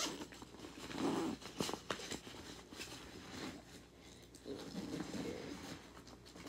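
Rummaging by hand through a fabric baseball equipment bag: irregular rustling and scuffing, with scattered light clicks and knocks as the gear inside is shifted about.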